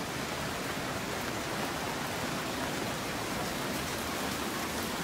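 Heavy rain falling steadily on pavement and cars, a dense even hiss.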